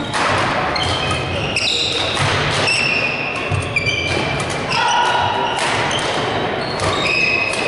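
Badminton rally in a sports hall: rackets hitting the shuttlecock now and then, and shoes squeaking in short high chirps on the wooden court floor, over a steady hall din.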